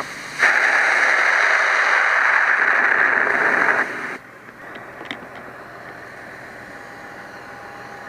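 Fire hose nozzle hissing loudly as the line is shut down. The hiss stops suddenly about four seconds in as the water stream cuts off, leaving a faint steady hum.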